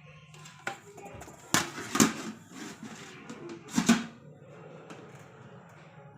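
Metal parts of a stovetop gas oven clanking and knocking as it is handled and assembled: a handful of sharp knocks, the loudest about a second and a half, two, and four seconds in.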